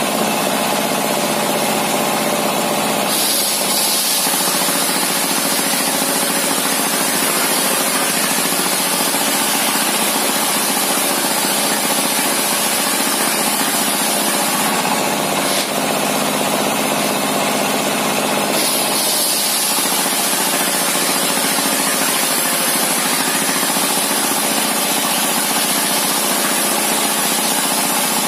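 Homemade table circular saw, belt-driven by a single-cylinder dompeng diesel engine, ripping a large wooden beam: the engine runs steadily under the high hiss and whine of the blade cutting, which grows a few seconds in, eases a little past halfway, and picks up again as the cut goes on.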